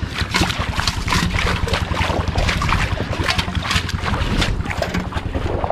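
Feet wading through ankle-deep water over soft mud, splashing and sloshing with each step, over a steady low rumble of wind on the microphone. The mud is soft enough that the feet sink in.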